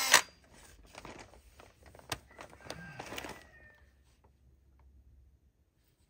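A short sharp knock at the very start, then faint clicks and rustling as a cordless drill with a wire-brush wheel is handled and set down by a person lying on dirt; from about three and a half seconds in, near silence. The drill's motor is not running.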